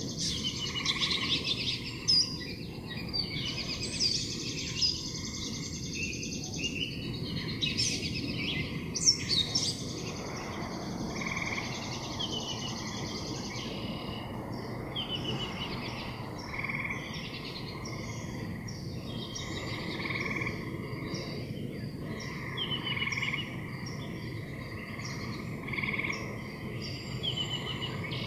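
Outdoor animal chorus: birds chirping and singing densely, with a few loud chirps about eight to nine seconds in. After that come sparser short calls every second or two, over a steady low rush.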